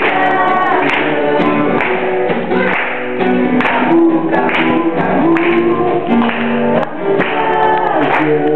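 Live acoustic song: singing over a strummed acoustic guitar.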